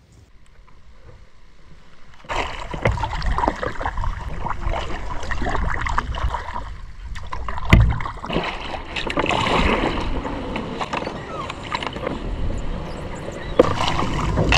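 Kayak paddling on calm water: paddle strokes with water sloshing and dripping around a skin-on-frame kayak, starting about two seconds in, with one heavier knock partway through. Near the end it gets louder as the bow pushes into floating water plants and reeds.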